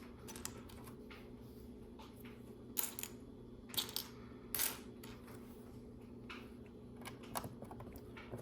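Small plastic LEGO pieces clicking and clattering as they are picked out and pressed into place, a handful of sharp clicks with the loudest three clustered in the middle.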